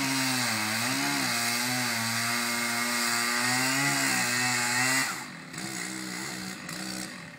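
Two-stroke chainsaw running hard in a tree trunk, its engine note sagging and recovering under load. About five seconds in it turns quieter and changes pitch.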